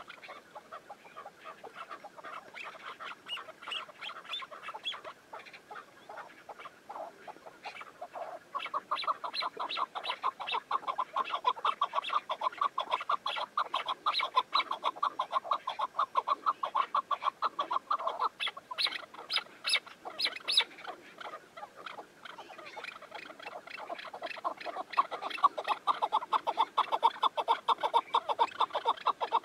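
Chukar partridges calling, a rapid run of repeated clucking notes several to the second. The calling is sparse at first, swells into a dense, louder chorus about eight seconds in, eases off briefly two-thirds of the way through, then builds again.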